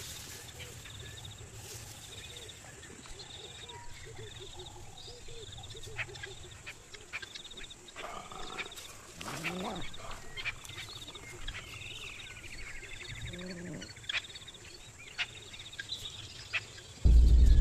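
Bush ambience: insects chirping in a regular pulsing rhythm over a steady high buzz, with scattered sharp clicks. There are two low animal calls, a longer one that rises and falls in pitch about halfway through and a shorter one a few seconds later. Loud music comes in just before the end.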